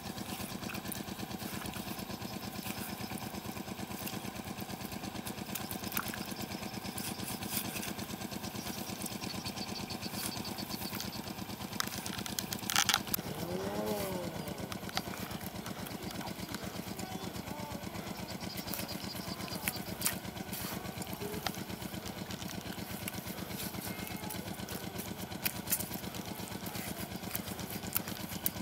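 A small engine drones steadily throughout, over scattered clicks and thuds from a hoe chopping into wet clay soil. There is a sharp knock about halfway through, followed by a short whine that rises and falls.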